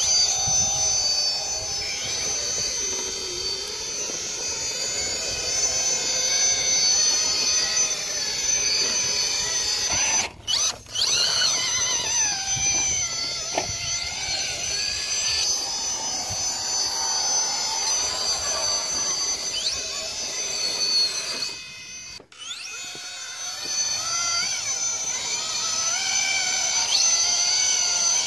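Electric motors and gear drivetrains of RC rock-crawler trucks whining as they crawl up rock, the pitch wavering up and down with the throttle. The sound breaks off briefly twice, about a third and three quarters of the way through.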